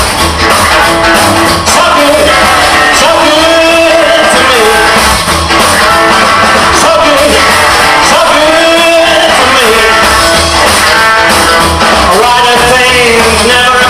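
Live rock and roll band playing loud: a male voice singing a melody over upright double bass, drums and guitar.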